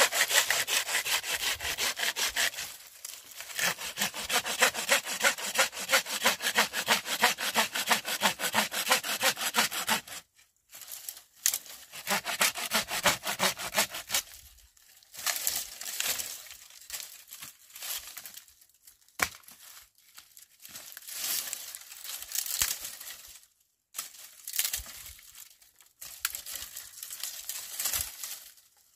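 Hand pruning saw cutting through a dry branch in rapid, even back-and-forth strokes, with a short break about three seconds in and stopping about ten seconds in. After that, irregular crackling and rustling of dry branches and leaves being handled.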